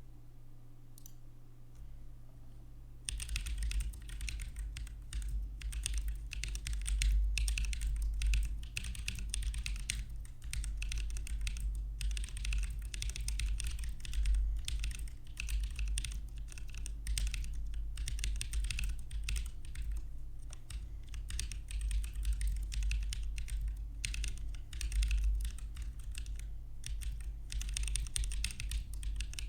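Mechanical keyboard with Holy Panda tactile switches being typed on quickly, a dense run of key clacks that starts about three seconds in.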